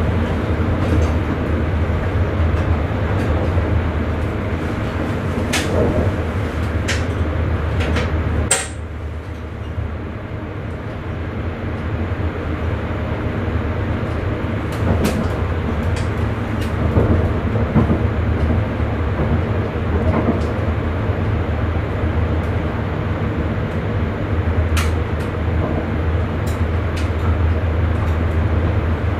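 Sprinter electric train running, heard from the driver's cab: a steady low rumble and hum with scattered sharp clicks. It dips a little about a third of the way in, then builds back up.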